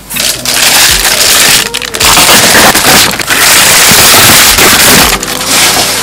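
Plastic bubble mailer being torn open by hand: loud crackling tearing and crinkling, which eases briefly about two seconds in and then runs on for about three seconds more.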